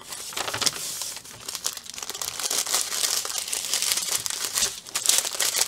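Plastic crinkling and rustling as strips of small plastic bags of diamond-painting drills are picked up and handled: a dense, crackly rustle throughout.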